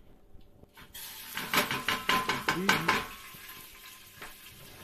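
Kitchen clatter of a plastic strainer and steel pot for about two seconds, then a steady sizzle as wet red lentils fry in hot oil at the start of lentil soup.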